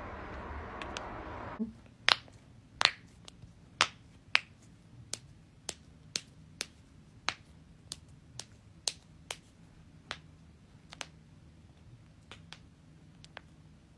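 A long series of sharp joint cracks and pops, about two a second at irregular spacing, loudest in the first few seconds and fainter toward the end. A steady hiss is heard before the first crack and cuts off about a second and a half in.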